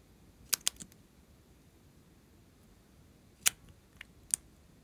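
Sharp plastic clicks from a lip gloss tube and its cap-and-wand being handled: three quick clicks about half a second in, then three more, the first of them the loudest, between three and a half and four and a half seconds in.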